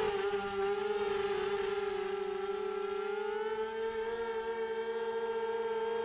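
A 3D printed tricopter's electric motors and propellers give a steady whine in flight, its pitch drifting slightly down and then back up.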